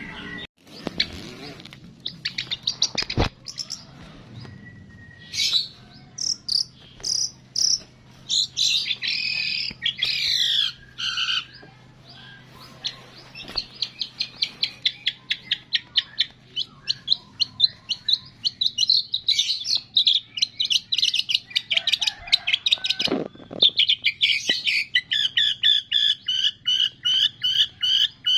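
Songbirds chirping and chattering in quick runs of repeated high notes, several a second, with a sharp click about three seconds in.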